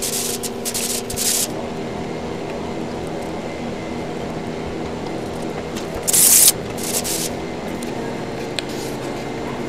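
Stir stick scraping around a plastic mixing cup of thick epoxy resin and blue pigment, in short scratchy strokes, the loudest about six seconds in, over a steady background hum.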